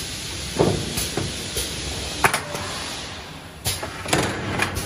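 Automatic paper tube core cutting machine's loader working with a steady hiss and hum. A low thump and several sharp clacks come as a paper tube core is dropped onto the metal feed rail and pushed along toward the chuck.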